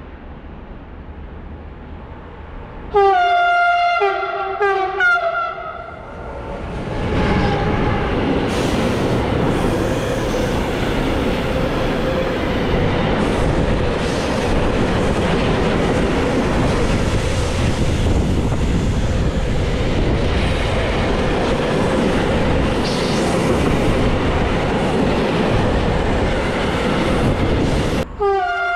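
Class 193 Siemens Vectron electric locomotive sounding its horn in a few short blasts as it approaches, then the locomotive and a long train of tank wagons running past at close range with a steady rumble and rattle of wheels on rail. Right at the end a horn sounds again.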